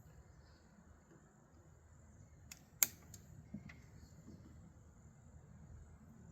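Three or four short, sharp mechanical clicks a little over halfway through, one of them a much louder snap, over faint steady hiss.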